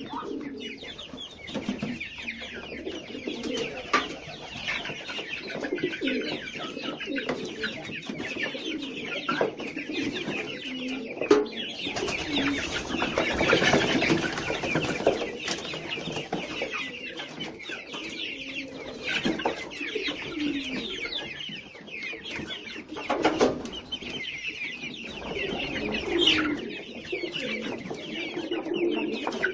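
Domestic birds calling, a mix of cooing and clucking, with many short clicks and taps scattered throughout.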